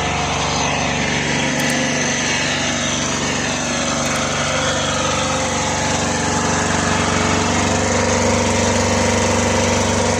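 Lister Petter 5 kVA silent-type diesel generator running steadily under load, powering a 1.5-ton window air conditioner.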